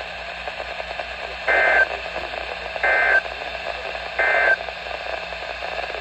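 Three short data bursts of the Emergency Alert System end-of-message code, a little over a second apart, played through a Midland NOAA weather radio's speaker over steady radio hiss and hum. They mark the end of the severe thunderstorm warning broadcast.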